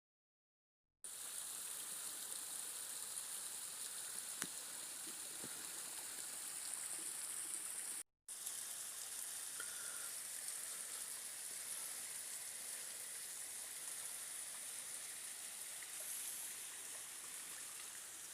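Water running and splashing down a half-frozen waterfall, a steady high hiss, with a brief dropout about eight seconds in.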